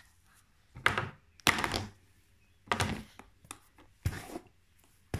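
Handling noise from a phone held close: four short thumps and rubs as it is moved about.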